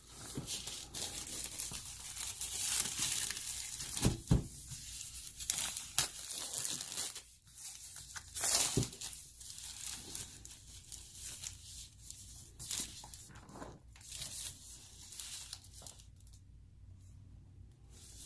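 Tight plastic shrink wrap being torn and crinkled off a board game box, in irregular rustling bursts that die down near the end.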